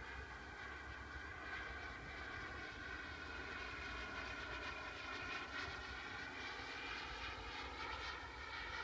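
Small model jet turbine (KingTech K45) whining high in the sky as the RC jet flies past, its pitch dipping slightly and rising again, over a low rumble.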